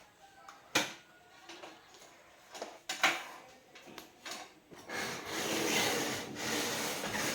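Two sharp knocks about two seconds apart, then a couple of seconds of scraping or rubbing.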